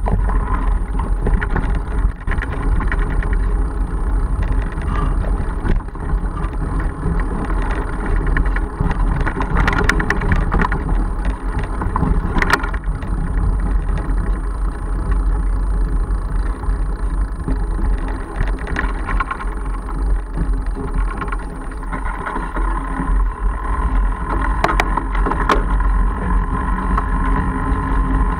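Riding noise from a Mongoose Argus fat bike picked up by its mounted camera: a continuous rumble of fat tyres on the trail and wind on the microphone, with frequent small knocks and rattles over bumps. A steadier hum grows in the last several seconds as the tyres roll onto a gravel road.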